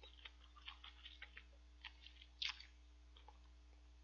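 Faint, irregular wet clicks and crunches of a person chewing chicken feet, with one louder crunch about two and a half seconds in.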